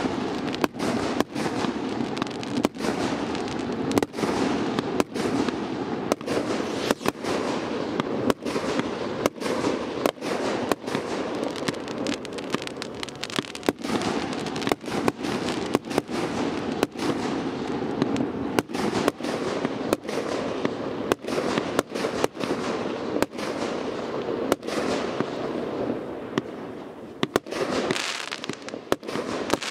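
A long-burning consumer firework spraying sparks: a steady hiss broken by sharp cracks about once or twice a second, growing brighter and hissier near the end.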